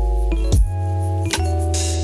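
Background music: a melody of struck, ringing notes changing about every half second over a loud deep bass.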